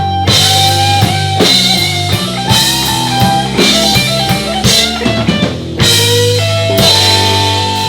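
Live rock band playing an instrumental passage without vocals: a drum kit keeping a steady beat under sustained bass notes and a guitar line.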